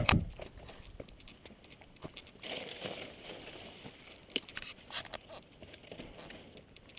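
A hiker's footsteps crunching on sand and leaf litter while climbing up a riverbank, uneven and irregular, with brush rustling and clicks from the gear.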